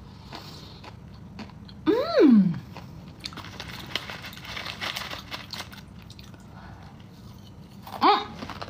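A person biting and chewing a crunchy snack, with crackling crunches. Twice they hum an appreciative "mmm" with a rising then falling pitch, about two seconds in and near the end.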